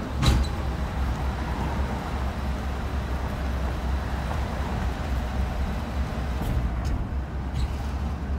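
Road and engine noise heard from inside a moving car's cabin: a steady low rumble with tyre hiss.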